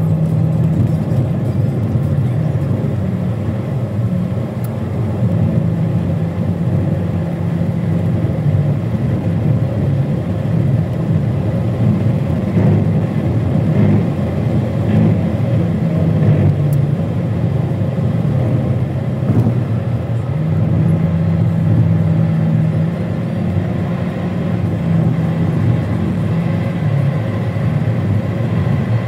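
Car driving, heard from inside the cabin: a steady drone of engine and tyre noise, with a low engine tone that shifts up and down in pitch every few seconds.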